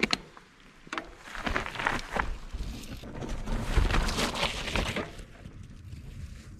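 A mountain bike riding off over a rough grass and dirt trail: clicks, rattling and tyre noise with a low rumble, loudest about four seconds in and dropping away about five seconds in.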